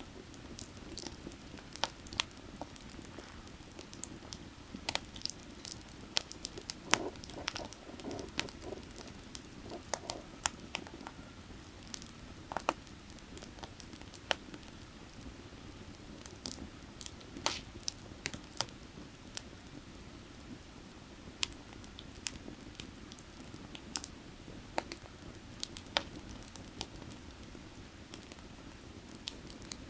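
Burning firewood crackling, with frequent irregular sharp pops, over a steady low rush of creek water.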